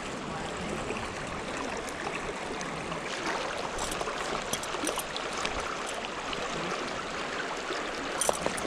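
Creek water flowing steadily, a continuous rushing babble, with a few short clicks near the end.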